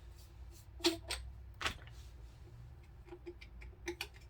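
Metal suppressor baffles clicking and scraping as they are twisted by hand inside the tube: a run of irregular sharp clicks and small ticks, the loudest about a second and a half in.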